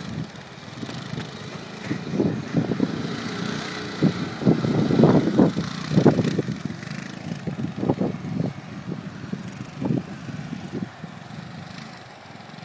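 ATV engine running with uneven throttle as the quad circles, swelling and fading and loudest around the middle, then quieter near the end as it moves away.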